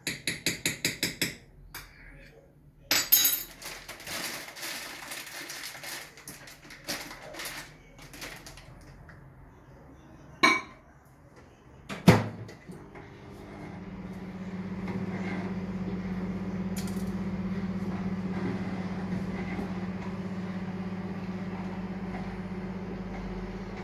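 A rapid run of about eight short ticks, then light plastic clatter and two sharp clicks, as an iLife V7 robot vacuum is handled. About thirteen seconds in, its motor starts and runs with a steady low hum to the end.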